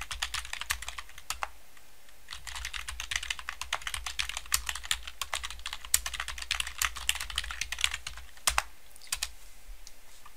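Typing on a computer keyboard: quick runs of keystrokes, a short pause about a second and a half in, then a long fast run and a few last separate keystrokes near the end.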